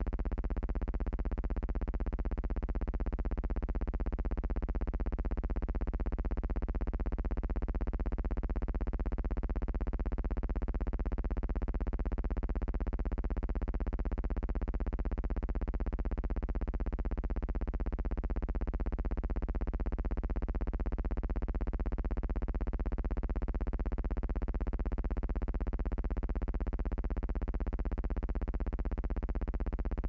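Steady low electrical hum with a buzz of evenly spaced overtones, unchanging in pitch and level.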